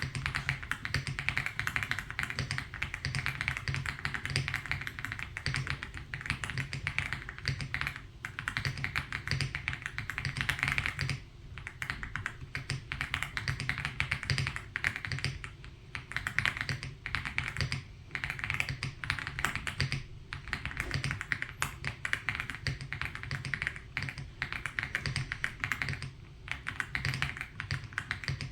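Fast typing on an Aula F75 mechanical keyboard: a dense run of keystroke clacks, broken by short pauses every few seconds.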